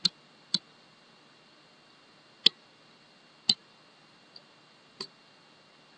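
Six short, sharp computer mouse clicks at uneven intervals, the fifth one faint, over a quiet background hiss.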